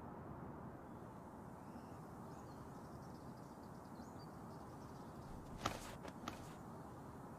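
Faint steady background hiss, with two brief sharp clicks about two-thirds of the way through.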